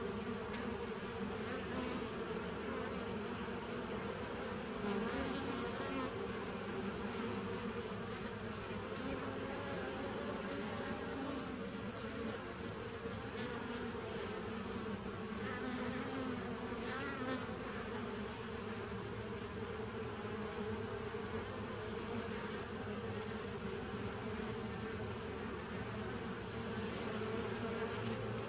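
Honey bees buzzing steadily as they fly in and out at the entrance of a nuc hive.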